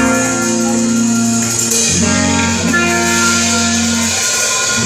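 Alt-rock band playing live, loud guitar chords held and changing about two seconds in and again at the end, over drums. The recording sounds poor and harsh.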